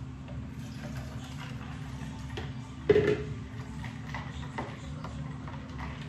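Kitchen handling sounds: scattered light clicks and one sharp knock with a short ring about three seconds in, over a steady low hum.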